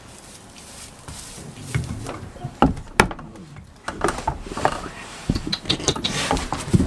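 Goats moving about on straw bedding and climbing on a seated person: rustling with scattered knocks and scrapes, two sharp knocks about two and a half and three seconds in.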